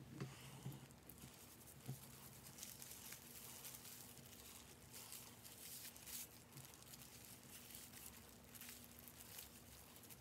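Faint rustling and crackling of a gloved hand working hair dye through wet hair, in irregular short strokes over a faint steady low hum.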